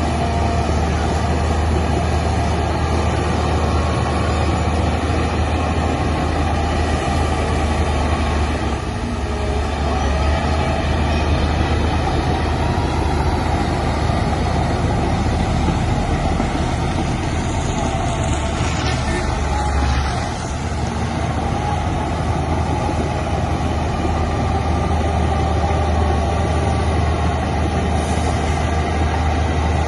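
Heavy diesel earthmoving machinery running steadily with a deep, constant engine drone; the note eases briefly about two-thirds of the way through.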